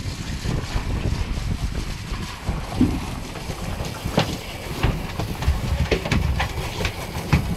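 Wind rumbling on the microphone aboard a boat at sea. In the second half come several sharp knocks or slaps, about six, spaced half a second to a second apart.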